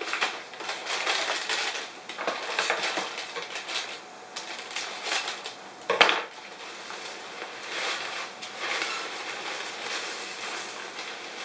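Crinkling and rustling of a cereal box's plastic inner bag being opened, with one sharp clack about six seconds in as scissors hit the counter, then corn flakes pouring and rustling into a zip-top plastic bag.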